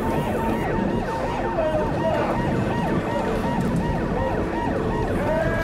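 Sirens of emergency vehicles, several sounding at once in quick, repeated falling sweeps.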